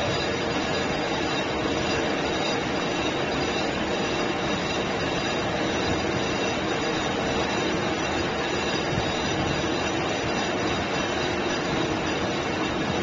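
C9372 brake drum and disc lathe running steadily while turning a brake disc as the tool post feeds the cutting tool across the disc face. A constant mechanical noise with several steady tones above it, unchanging throughout.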